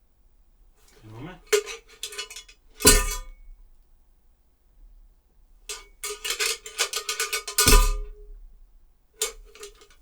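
A small metal part rattling and clanging as it is lifted and thrown down, performed as foley for a heavy rail. There are three runs of quick ringing clinks, and the first two each end in one louder clang, at about three seconds and again near eight seconds.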